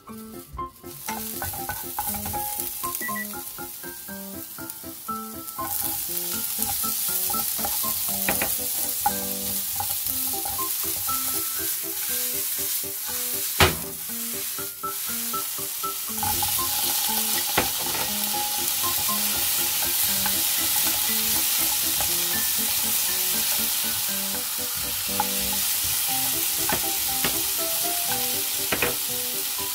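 Garlic, then sliced onion, rice cakes and sausages sizzling as they are stir-fried in oil in a nonstick frying pan. The sizzle starts about a second in and grows louder twice as more food goes in and the pan heats, with a few sharp knocks along the way.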